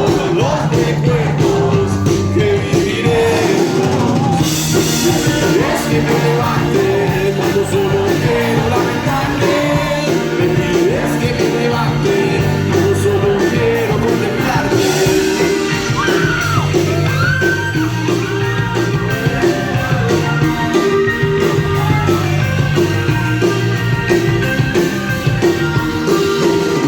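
Rock music with a singing voice over a steady bass and band accompaniment.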